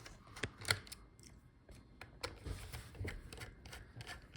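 Faint, irregular clicks and light taps of a small screwdriver and tiny screws being worked out of a laptop's internal port board.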